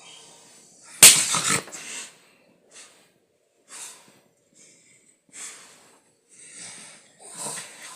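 Snoring fades out, then a loud, sudden noise hits about a second in. It is followed by a string of short, breathy wheezes and gasps about once a second.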